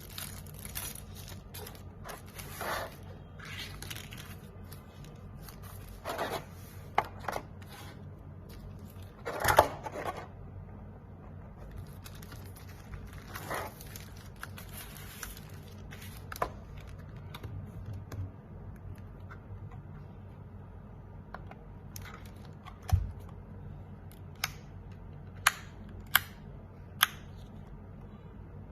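Hands handling a mechanical keyboard and its packaging: irregular crinkling and rustling with scattered clicks, then a few sharp separate clicks near the end.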